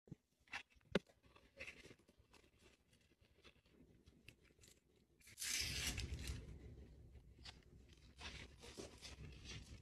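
Faint handling noise of a paperboard fries carton and its card insert: light taps and crinkles, with a louder rustle about halfway through.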